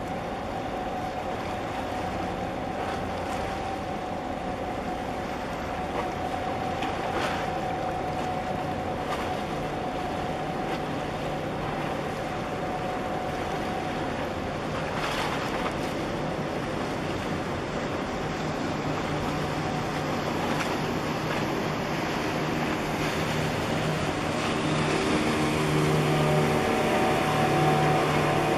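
Water washing against the breakwater under a steady hum from a large container ship passing close by. Over the last several seconds a small motorboat's engine builds and grows louder as the boat speeds past.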